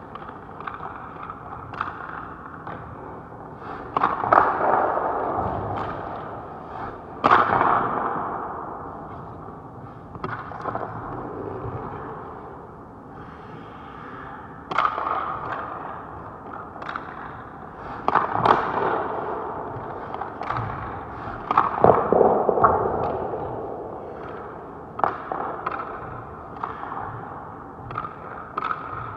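Hockey pucks and sticks striking hard: a string of sharp cracks and knocks, the loudest about four, seven, eighteen and twenty-two seconds in, each ringing out through the echo of an indoor ice rink.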